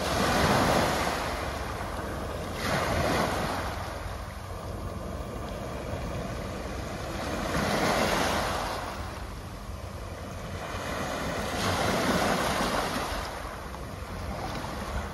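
Small sea waves breaking and washing up a pebble beach, surging four times a few seconds apart, with a steady low rumble of wind on the microphone.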